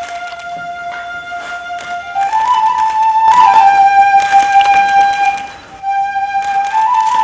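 A wind instrument plays a slow line of long, high held notes, each sliding down into the next. It gets louder about two seconds in.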